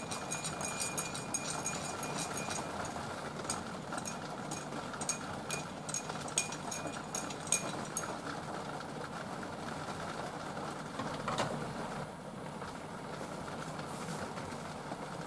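Metal spoon clinking against a ceramic cup while stirring: rapid clinks at first, then slower ones, stopping about eight seconds in, over a steady hiss.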